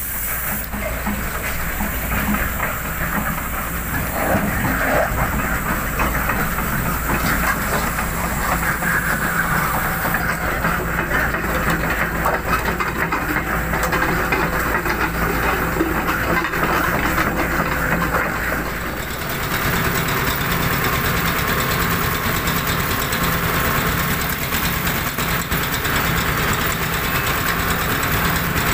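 Diesel engines of hydraulic excavators running steadily, a continuous engine noise with hiss, whose character changes abruptly about two-thirds of the way through.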